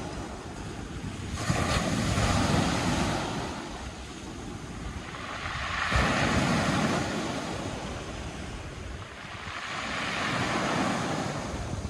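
Sea waves breaking on a pebble beach, the surf swelling and ebbing three times.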